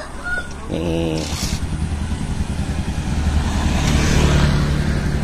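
Small motorcycle engine running, growing louder about three seconds in.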